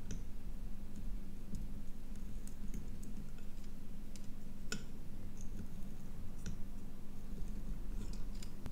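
Scattered light clicks and ticks from hand-soldering a small circuit board, the iron tip and solder touching the pads and leads, over a steady low hum.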